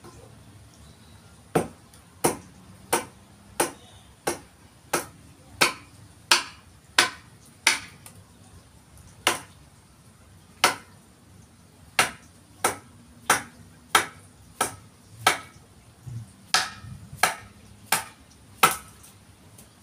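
Sharp chopping strikes of a hand tool into a forest red gum log being shaped into a didgeridoo. They come in a steady run, about three every two seconds, with a few more widely spaced blows partway through.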